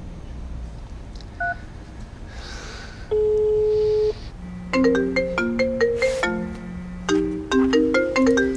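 Phone call going through: a short beep, then a single steady ringback tone for about a second, then a mobile phone ringtone playing a quick melody of bright notes from about halfway in.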